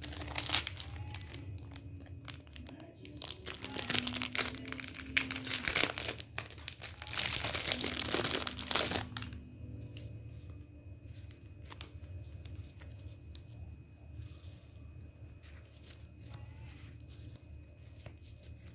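Clear plastic packaging crinkling and a stack of die-cut paper memo labels rustling as they are pulled out and handled. The rustling is loud for about the first nine seconds, then turns to softer handling with small clicks.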